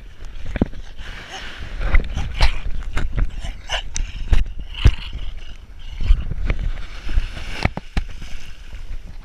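Cocker spaniel nosing at a camera lying in the sand, making a run of sharp knocks and scrapes on and around it, over a low rumble of wind on the microphone.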